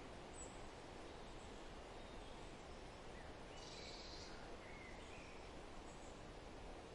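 Faint forest ambience: a steady hiss of wind in the trees, with a few soft bird chirps about halfway through and once near the end.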